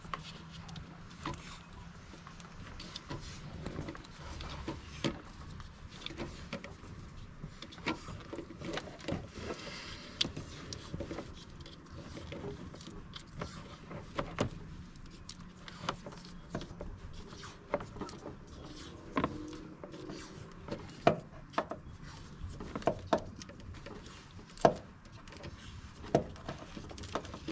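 Irregular small clicks, taps and rustles of a corrugated plastic wire loom and wiring harness being handled and pressed into place against the car's sheet-metal floor.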